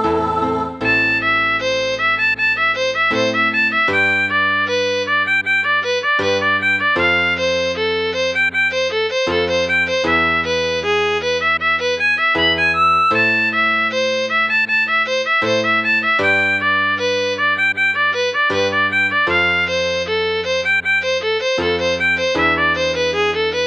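Choir rehearsal track for the soprano part: the melody is played note by note on a violin-like instrument voice over held keyboard chords and bass notes, with no singing. The notes are steady and even.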